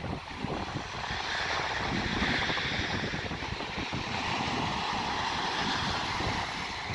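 Ocean surf washing in and a wave breaking against a shoreline rock near the end, a steady hiss of water that swells about a second in, with wind rumbling on the microphone.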